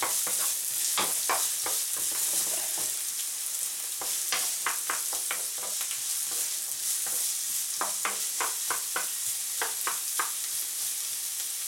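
Chopped onion, garlic and ginger sizzling in hot oil in a frying pan, stirred with a wooden spatula that scrapes and taps against the pan, several knocks in quick succession now and then.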